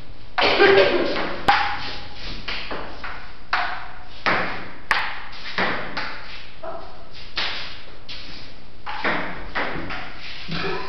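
Table tennis rally: the celluloid ball clicking off paddles and bouncing on the table in a quick, irregular series of sharp pings, echoing in a large bare room.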